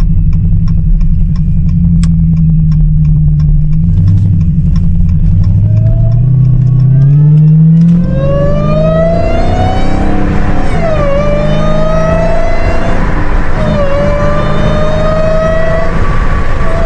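Dodge Challenger Hellcat's supercharged 6.2-litre HEMI V8, fitted with an aftermarket cold air intake, accelerating hard. The engine note climbs for a few seconds, then a loud, high supercharger whine rises steeply with the revs, dropping back at each upshift and climbing again.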